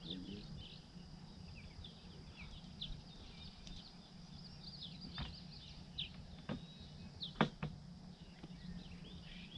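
Birds chirping in many short, quick notes, over a faint steady high hum. A few sharp clicks come in the second half.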